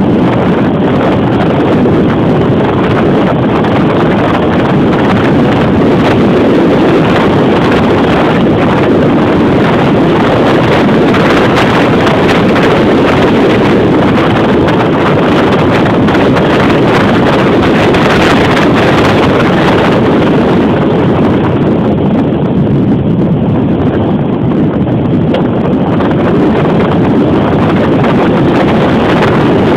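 Loud, steady wind rushing over the microphone of a camera on a bicycle speeding downhill.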